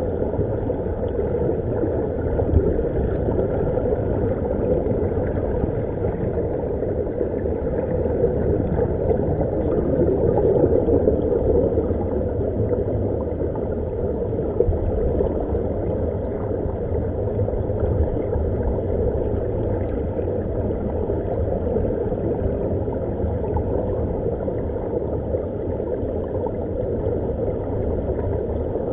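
Steady underwater rumble of air bubbling out of air-fed dive helmets, heard underwater, with no breaks.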